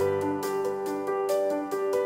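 Instrumental background music: a gentle melody of held notes changing in an even rhythm.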